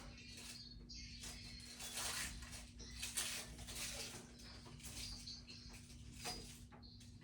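Irregular rustling and light scraping from handling a resin statue and its base, with a steady faint hum underneath.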